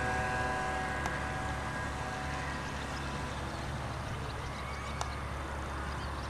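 Vintage Nor-Star model boat's motor running at speed: a steady pitched whine that fades away after about two seconds, leaving a steady hiss of motor and water.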